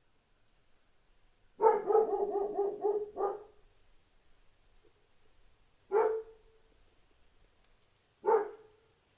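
A dog barking: a quick run of about eight barks starting a second and a half in, then two single barks, the last near the end.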